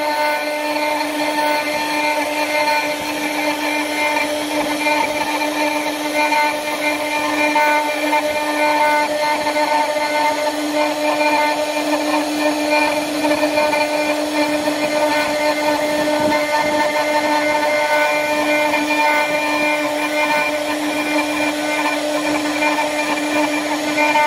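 CNC router spindle running and carving wood: a steady pitched whine over the rough noise of the bit cutting, even in level throughout.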